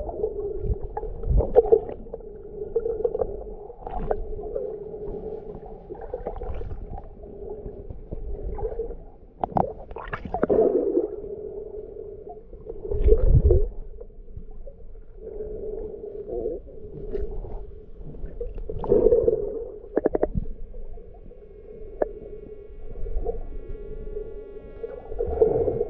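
Muffled underwater water noise picked up by a submerged camera: a boomy, hollow sloshing and gurgling with irregular knocks and swells.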